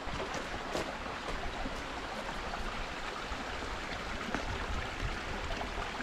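Steady rushing of a small rocky stream running beside the path.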